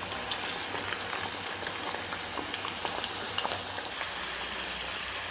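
Potato nest snacks deep-frying in hot oil: a steady sizzle with scattered crackles and pops.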